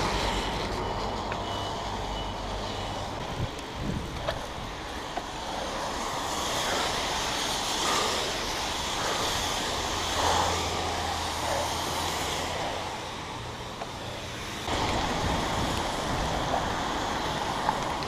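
Wind rushing over the microphone while riding a BMX bike through the rain, a steady rushing noise that swells and eases, with a few light clicks and knocks.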